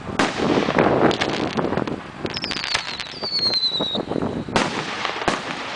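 1.3G consumer aerial firework shells going off: a sharp bang just after the start followed by a second or two of crackle, then a high whistle that falls slightly in pitch, and two more sharp bangs near the end.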